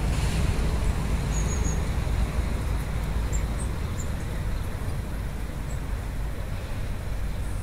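Outdoor background: a steady low rumble, with a few faint, high bird chirps now and then.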